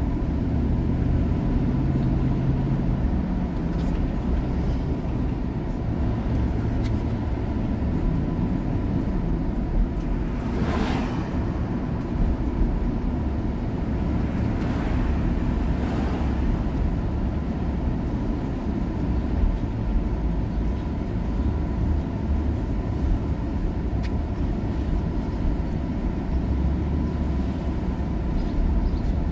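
Car driving at town speed, heard from inside the cabin: a steady low rumble of engine and tyres on the road, with a faint steady high tone under it. A brief whoosh swells and fades about eleven seconds in, with a fainter one a few seconds later.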